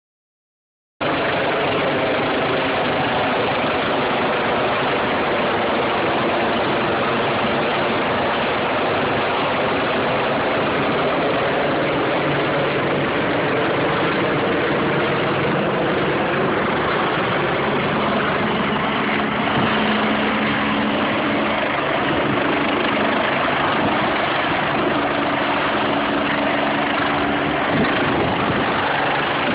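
Helicopter coming in overhead: a steady engine and rotor drone that starts about a second in, with a low hum that grows stronger in the second half as it draws closer.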